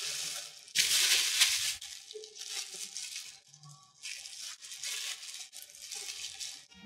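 Clear plastic bags crinkling and rustling as statue parts are pulled out of their wrapping, in a string of bursts, the loudest about a second in.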